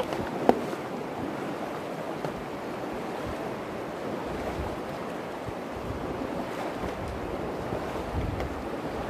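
Shallow Virgin River rushing and splashing over rocks, a steady wash of water. A single sharp click about half a second in. A low rumble of wind on the microphone from about four seconds in.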